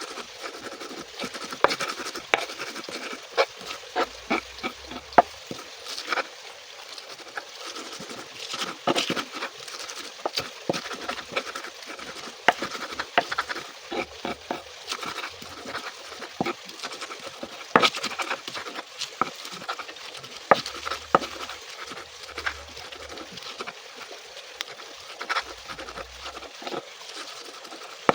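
Irregular clicks, taps and knocks of kitchen food preparation, uneven in spacing, with a few louder knocks.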